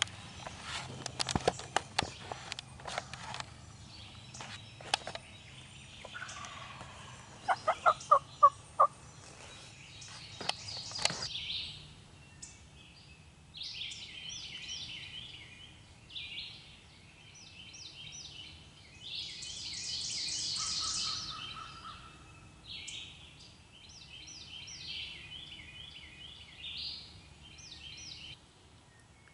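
Handling clicks and rustles, then a run of five or six loud turkey yelps, evenly spaced, about eight seconds in. Small birds chirp high and quick through the second half.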